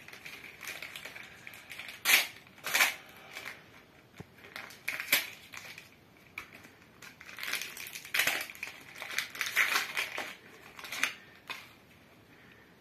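Foil trading-card packet crinkling in irregular crackly bursts as it is torn open and the cards are pulled out.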